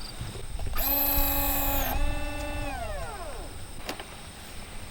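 Small electric motor of a foam RC plane running up to a steady whine for about two seconds, then winding down with a falling pitch as the throttle is cut.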